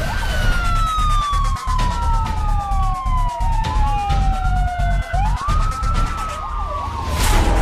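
Fire truck's electronic siren wailing in long falling and rising sweeps, two tones at times crossing, with a quick yelping warble near the end, over a steady low rumble.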